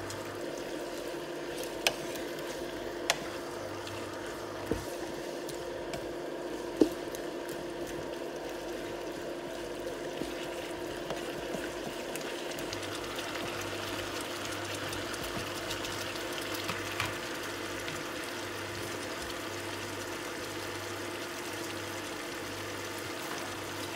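Beef and bell pepper strips simmering in sauce in a pan, with a few sharp taps of a wooden spatula against the pan in the first seven seconds and a faint bubbling hiss that grows from about halfway. A steady hum with a pulsing low tone runs underneath.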